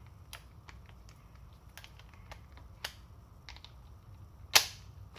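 Light metal clicks and ticks from a socket being handled and pushed onto the impact wrench's square anvil, with one sharp, loud click about four and a half seconds in as it goes on; the new socket is a tight fit.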